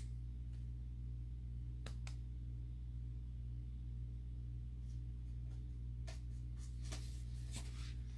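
Steady low hum with faint, scattered clicks and rustles, more frequent from about six seconds in, as a rabbit noses and nibbles at things on a cluttered table.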